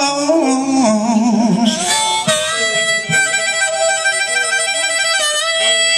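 Live band music: a reedy lead instrument plays a wavering, bending phrase, then holds one long steady note for about three seconds over the band.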